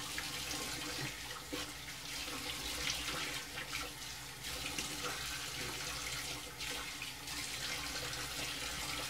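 Bathroom sink tap running cold water steadily into the basin, with light splashing as the face is rinsed after a shave.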